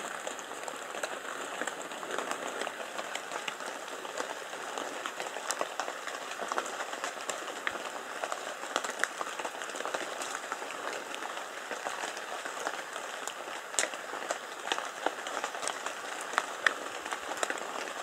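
Light rain pattering on leaves and grass: a steady hiss dotted with many small, irregular ticks.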